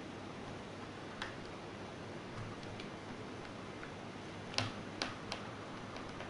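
Small sharp clicks from laptop parts and tools being handled during disassembly: one about a second in and three close together about two-thirds of the way through, over a steady hiss.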